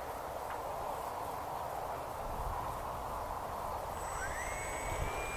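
Steady outdoor hiss; about four seconds in, the motor of a model Piper J3 Cub spins up with a thin rising whine as its propeller starts turning for takeoff.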